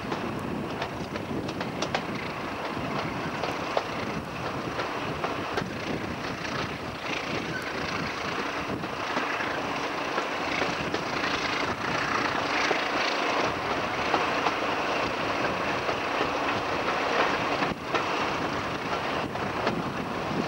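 A heritage BR diesel-hydraulic locomotive hauling a train under power, heard from an open coach window behind it: a steady engine drone over the clicking of wheels on rail joints and the rush of the moving train.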